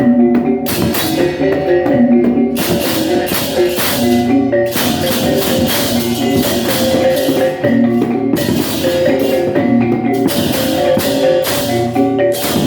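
Balinese baleganjur gamelan playing: a steady pattern of tuned gong tones, with crashing cymbals (ceng-ceng) surging in and dropping out every couple of seconds.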